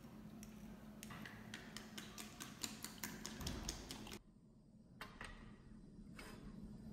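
Wooden chopsticks beating eggs in a ceramic bowl: a quick run of light clicks, about five a second, as they strike the bowl's side. After an abrupt drop in the background about four seconds in, a few single clinks.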